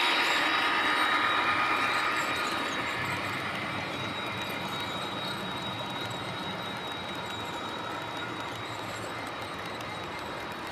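Model freight train running past on the layout track: a steady rolling rumble of wheels on rail with a thin, high steady whine. It is loudest at first as the locomotives pass and fades a little after about two seconds as the wagons follow.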